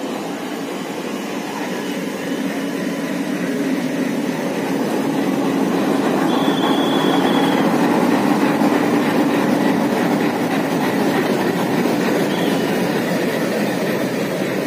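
Passenger train running on rails through a yard: a steady rumble of wheels and coaches that grows louder toward the middle, with brief high wheel squeals about six seconds in and again near the end.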